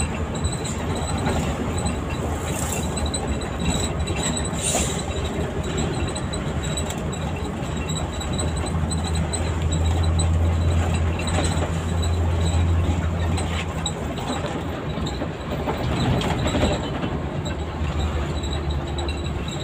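Steady drone of an intercity bus's diesel engine and road noise inside the cabin, with a few short clicks and rattles. The low engine hum grows stronger for a few seconds around the middle, then settles back.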